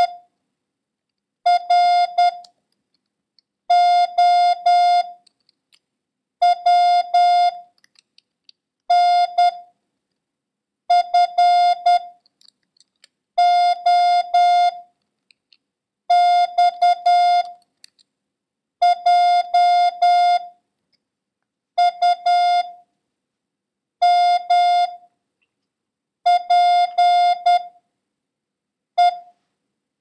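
Morse code practice tone: a single steady mid-pitched beep keyed in dits and dahs, sending one random character at a time with pauses of about a second between characters.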